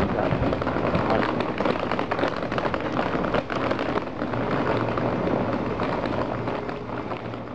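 Railway station platform noise: dense crackling and rustling over a low steady hum, fading near the end.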